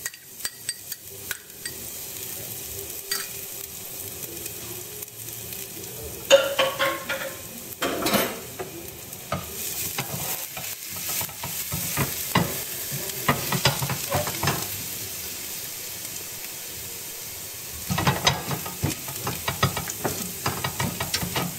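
Chopped garlic sizzling in hot olive oil in a stainless steel pot, with a steady hiss. A spatula stirs it and scrapes against the pan in several spells.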